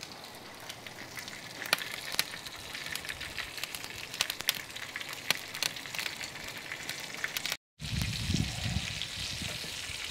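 Beef short ribs searing fat side down in hot olive oil in a stainless steel roasting dish over charcoal: a steady sizzle with frequent sharp crackles and pops. It breaks off for a moment about three-quarters of the way through, then carries on.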